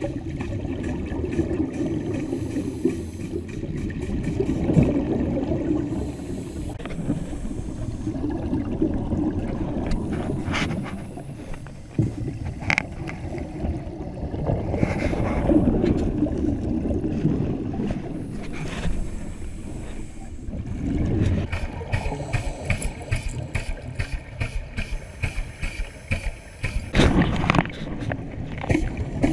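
Scuba regulator breathing heard underwater: exhaled bubbles rumble and gurgle in surges every few seconds, with scattered small clicks and taps between them.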